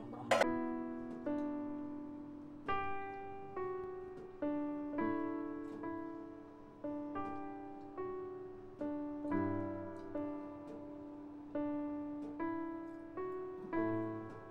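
Background music: slow solo piano, single notes and chords struck about once a second and left to ring out. A sharp click sounds just after the start.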